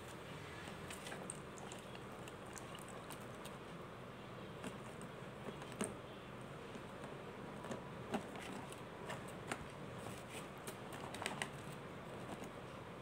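Water-soaked mothball lumps crackling with scattered sharp clicks as fingers press and crush them, over a steady low hiss.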